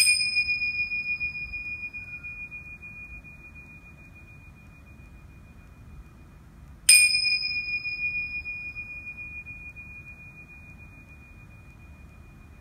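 Small hand-held meditation bells struck twice, about seven seconds apart, marking the end of a meditation. Each strike rings out in one clear high tone that slowly fades.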